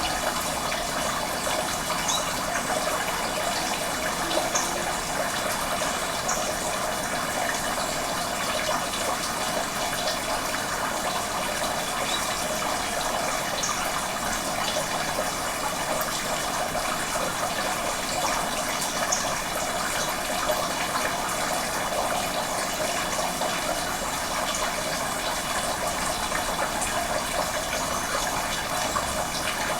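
Steady rush of running water, even and unbroken, with a few faint short high sounds scattered through it.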